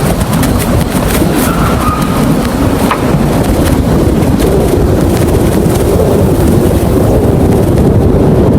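Loud, steady rumble of storm wind and rough water, with wind buffeting the microphone.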